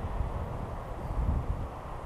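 Wind buffeting the microphone in uneven gusts, a low rumble that eases off near the end.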